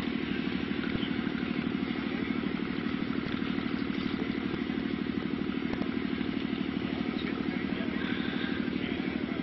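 An engine running steadily at an even speed, a low drone with a fast regular pulse that holds unchanged throughout.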